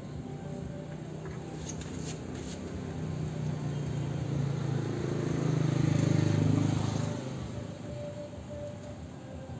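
A motor vehicle passing by: a low engine sound that swells over a few seconds, is loudest about six seconds in, then fades quickly.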